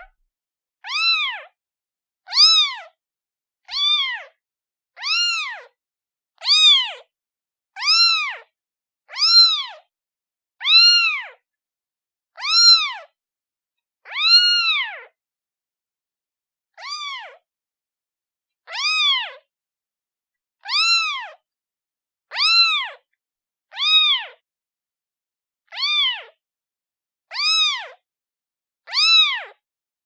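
Kitten meowing over and over, about eighteen short meows, roughly one every one and a half seconds. Each meow rises then falls in pitch, with a slightly longer pause about halfway through.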